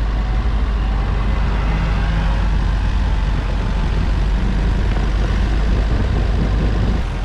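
Off-road 4x4 engines running hard under load with a heavy, steady low rumble, as a stuck truck is towed out of deep snow on a tow strap.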